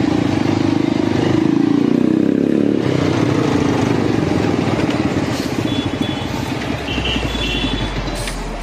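Honda SP 125 motorcycle's single-cylinder engine and exhaust running. The note holds even for the first few seconds, then breaks up and grows fainter through the second half.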